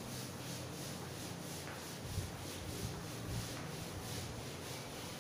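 Duster rubbing chalk off a blackboard in quick, even back-and-forth strokes.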